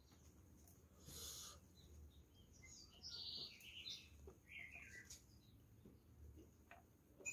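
Near silence, with a few faint bird chirps in the middle and a brief soft rustle about a second in.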